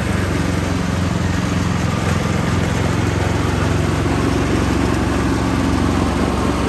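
An engine running steadily at an even speed, a low hum that holds the same pitch throughout.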